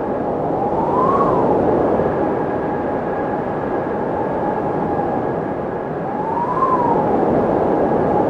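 A turning windmill: a steady rushing drone with a constant whine. Twice, about five and a half seconds apart, it swells louder and the whine rises and falls back.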